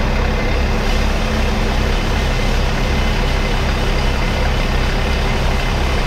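Chaser-bin auger unloading chickpeas into a truck bin: the tractor engine runs at a steady working speed driving the auger, over a continuous rush of grain pouring from the spout.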